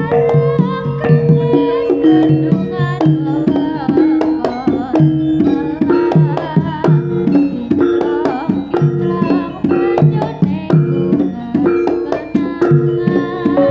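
Javanese jaranan gamelan music: hand drums beating a steady, busy rhythm under struck pitched metal instruments, with a wavering high melody line over the top.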